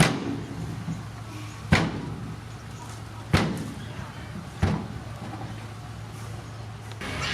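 Heavy earthmoving equipment running steadily at a low, even pitch, with four sharp loud bangs roughly one and a half seconds apart.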